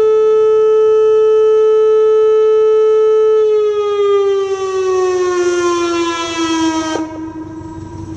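Whelen WPS-2810 electronic outdoor warning siren sounding the steady tone of its tornado signal. About three and a half seconds in the pitch starts to fall, and about seven seconds in the sound drops away sharply, leaving a faint lower tone as the signal ends.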